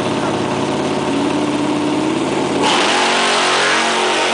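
Drag-race Chevy LUV pickup's engine revving on the starting line, its note slowly rising, then launching about two-thirds of the way in: the sound changes suddenly, jumping higher and pulling away as the truck accelerates down the strip.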